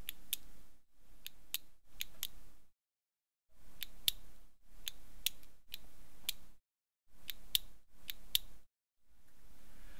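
Clockwork wind-up key being turned, a ratchet clicking in short turns of about two sharp clicks each, with a faint hiss. The turns come in three quick groups with brief pauses between.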